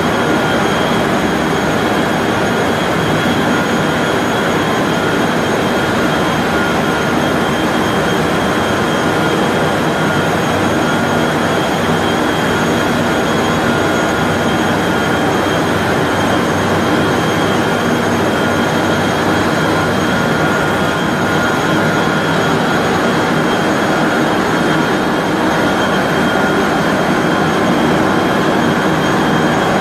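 A 3200 mm copy-paper machine running in production: a loud, even, continuous machine noise with a few steady high whines held over it.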